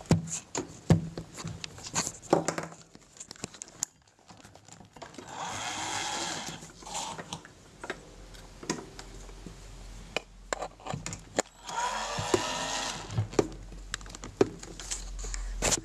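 Irregular clicks, knocks and rattles of circuit boards, wiring connectors and chassis parts being handled while a Tascam mixing console is taken apart. Twice there is a longer grating, scraping sound lasting a second or two.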